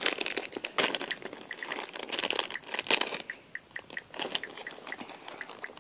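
Clear plastic bag crinkling and rustling as it is handled and opened, with a run of irregular crackles and clicks, while small toy accessories are taken out of it.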